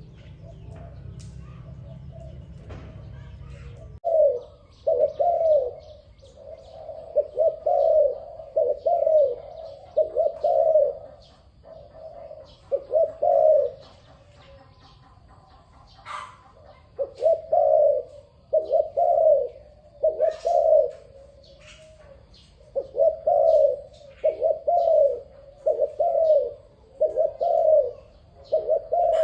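Dove cooing: low, repeated coos in phrases of several notes with short pauses, starting about four seconds in, over faint higher chirps. A low hum before the cooing stops when it begins.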